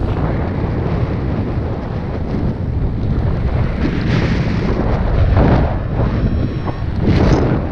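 Wind rushing over the microphone of a camera worn by a paraglider pilot in flight: a loud, steady low rumble with louder surges about four, five and a half and seven seconds in.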